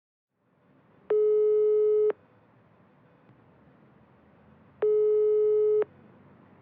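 iPhone outgoing-call ringback tone: two steady one-second tones about four seconds apart, the call ringing and waiting to be answered, with a faint hiss between them.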